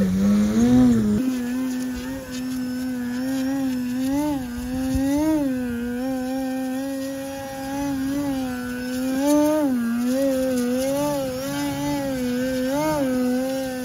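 Electric RC airplane's motor and propeller droning steadily, the pitch briefly rising and falling back every second or two.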